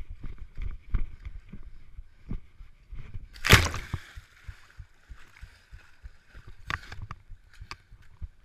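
A runner's footsteps thudding at about three strides a second, then a loud splash about three and a half seconds in as the feet go into water, followed by splashing steps through the water.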